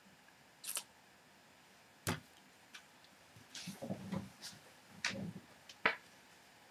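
Scattered sharp clicks and knocks, about half a dozen, with short rustles between them, as a person shifts in a chair and handles small objects.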